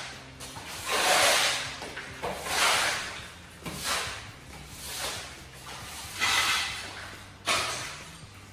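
Wide push broom scraping broken old floor tile and debris across the floor in repeated strokes, about six of them roughly a second and a quarter apart, each a rising-and-falling rasp.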